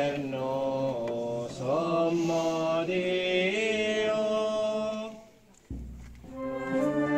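Voices singing a slow, unaccompanied liturgical hymn in long held notes that glide from one pitch to the next; the singing breaks off a little over five seconds in, and held notes start again just before the end.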